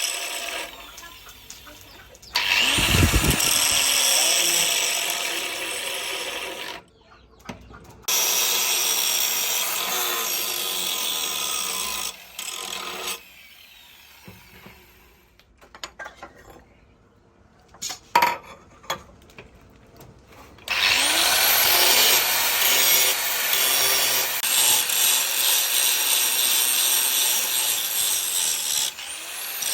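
A hand-held power tool grinding or sanding a workpiece in three long stretches, the last about nine seconds, with short pauses and a few clicks in between.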